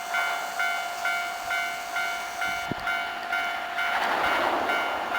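Japanese railway level-crossing warning bell ringing its electronic strokes, a little over two a second. From about four seconds in, the rushing wheel-on-rail noise of an approaching electric train grows under it.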